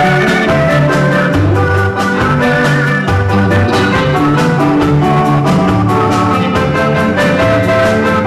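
Live band music with a steady beat: electric bass, drum kit and keyboard playing together.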